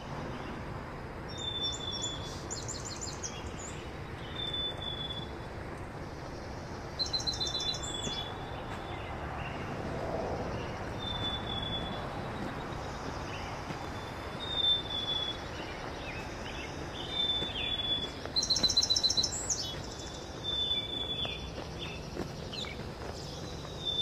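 Songbirds singing in woodland. One repeats a short, high, steady whistled note every two to three seconds, and others give quick trilled phrases, the loudest near the end. A steady low rushing noise runs underneath.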